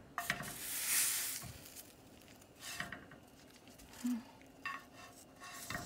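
Wooden chopsticks clicking and scraping against a frying pan as prickly pear cactus pads are shifted and turned, with a short burst of sizzling about a second in as the pads fry.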